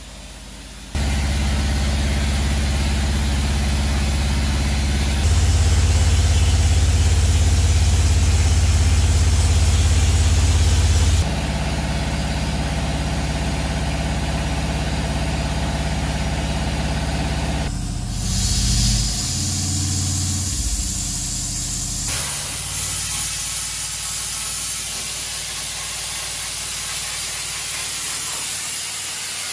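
Sandblasting: a steady rushing hiss of abrasive blast over the low, even hum of a running engine. The sound changes abruptly every few seconds, loudest and deepest for a stretch about a third of the way in.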